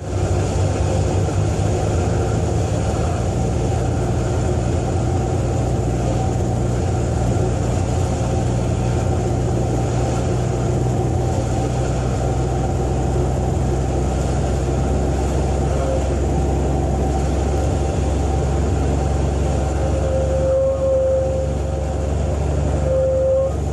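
Cessna 182A's Continental six-cylinder piston engine and propeller running steadily on approach, the engine note dropping about halfway through as the throttle is pulled back for a short-field landing. In the last third a steady single tone sounds on and off, typical of the stall warning horn in the flare.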